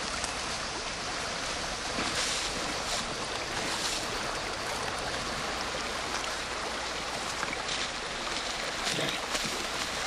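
A steady, even rushing noise, like outdoor water or rain ambience, with a few faint brief rises over it.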